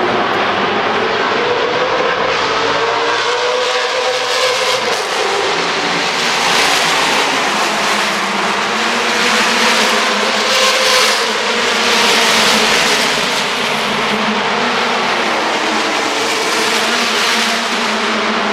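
Race cars passing at speed one after another, their engine notes rising and falling, with the noise swelling as groups go by in the middle of the stretch.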